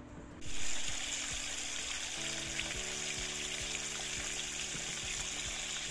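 Steady rush of a gorge brook's flowing water, cutting in suddenly about half a second in, with soft background music underneath.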